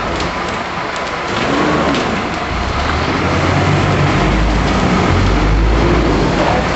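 A vehicle engine running with a low rumble that grows louder about halfway through, over a steady broad hiss.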